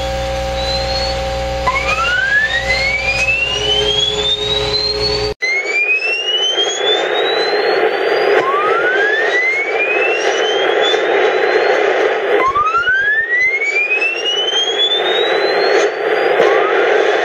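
Shortwave radio receiving what was later identified as HAARP transmissions: whistling tones that sweep upward in pitch over about three seconds, repeating roughly every four seconds, over radio static. Steady humming tones under the first sweeps stop abruptly about five seconds in, leaving a band of hiss.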